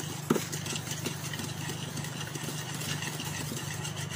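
Wire whisk stirring creamed ghee and sugar in a plastic bowl by hand: soft repeated scraping and light ticking, with one sharper click about a third of a second in, over a steady low hum.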